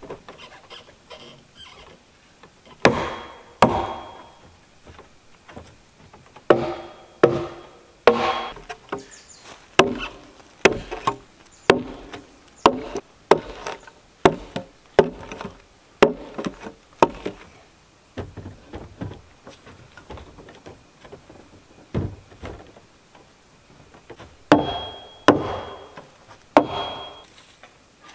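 Repeated hard blows of a tool on the log wall of a wooden cabin. They come in groups with pauses between, at their fastest about one and a half a second, each a sharp knock with a short ring.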